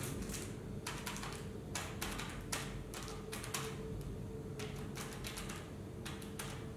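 Faint, irregular clicking taps over a steady low hum.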